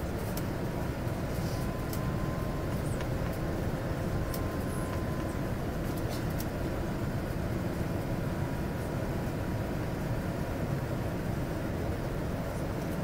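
Steady cabin noise of an airliner in descent: an even low rumble of engines and rushing air, with a faint steady whine.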